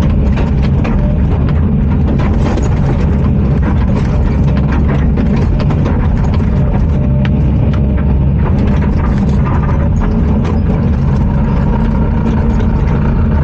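Bulldozer's diesel engine running steadily, with frequent short metallic clanks and rattles from the machine as it works.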